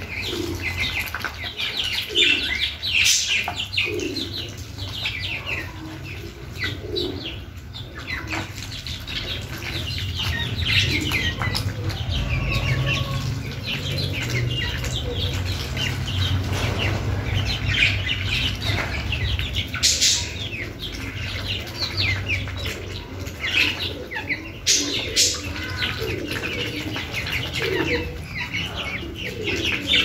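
Young ducks and chickens feeding together from a bowl of wet mash: a busy stream of quick pecks, bill clicks and dabbling splashes in the feed, mixed with chirps and short calls, over a steady low hum.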